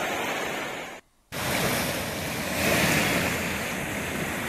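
Steady rushing noise of floodwater flowing along a flooded street. The sound cuts out completely for a moment about a second in, then returns, swelling a little around the middle.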